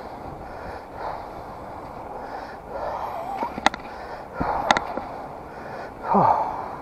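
Rider of a recumbent trike breathing hard while pedalling, breaths every second or two, over a steady rush of road and wind noise, with a few sharp clicks.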